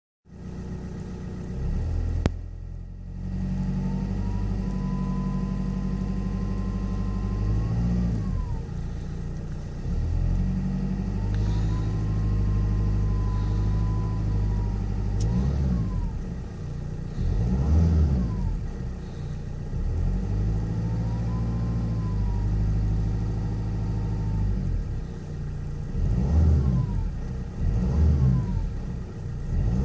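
Vauxhall Vectra SRi CDTi 150's 1.9-litre turbodiesel revved and held three times, with a thin turbo whistle that rises, holds, and falls away as the revs drop each time. Near the middle and again near the end come short, quick throttle blips.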